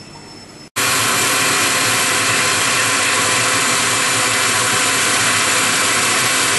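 Countertop glass-jug blender running steadily, puréeing cooked vegetables into gravy; the motor noise comes in abruptly about a second in and holds steady.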